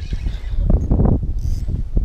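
Wind buffeting the microphone in a gusty, pulsing rumble, with a few scattered knocks and splashy rustles around the middle.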